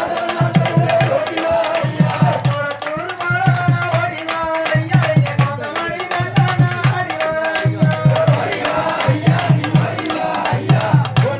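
Devotional music: a drum beaten in short rapid groups of strokes about once a second, with a wavering melody line over it.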